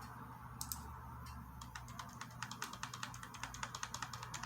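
Quiet, rapid light clicking, a few stray clicks and then a quick run of several a second, over a steady low hum.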